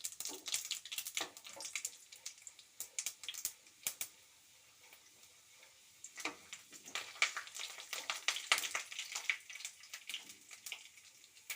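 Mustard seeds spluttering and crackling in hot oil with chana dal and urad dal frying, a tempering (oggarane) in progress: rapid irregular sharp pops over a faint sizzle, thinning out for a couple of seconds midway before picking up again.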